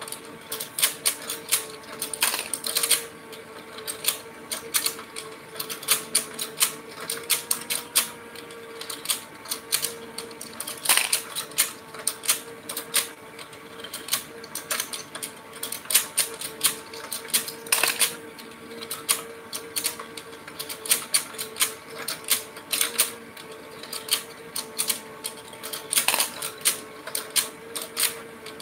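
Battery-operated fishing game toy running: its turning board and plastic fish rattle out rapid, irregular clicking and clacking over a steady motor hum.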